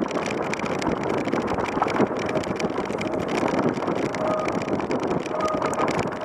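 E-mountainbike on plus tyres ridden through snow, heard from a camera mounted on the bike: wind buffeting the microphone, the tyres in the snow and the bike rattling over bumps. A faint whine of its Bosch Performance mid-drive motor comes and goes in the second half.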